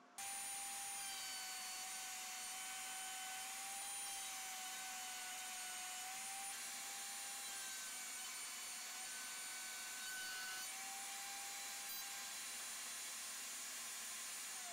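Table-mounted router with a Microjig dovetail bit running at speed, a steady high whine, as it cuts sliding-dovetail grooves in an ash board fed along the fence. It starts abruptly just after the beginning.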